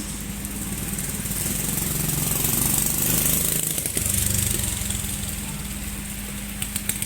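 An engine running steadily under a high hiss, getting louder between about two and four seconds in.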